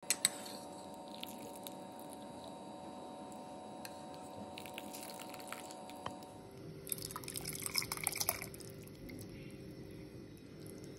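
Thin rasam simmering in a pot with faint bubbling clicks, then rasam poured from a ladle, splashing for about a second and a half around seven seconds in.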